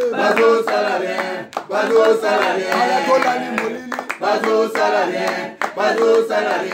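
A group of voices singing a chant in chorus, with hand clapping.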